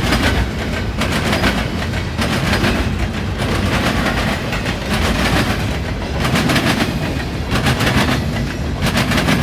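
Intermodal freight train cars passing at speed over a railroad diamond crossing, their wheels hammering the crossing in repeated sharp bangs over a steady rolling rumble.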